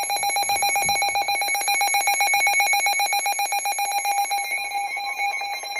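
Weather alert receiver's alarm sounding for an incoming tornado warning: a loud, rapid, evenly pulsing electronic beep on one steady pitch, with a slight change in the pattern near the end.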